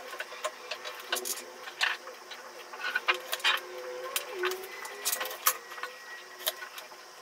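Irregular light clicks, taps and paper rustles from handwork at a table. A hot glue gun is picked up and set down on newspaper, and small dried clay stars are handled and pressed onto a cord.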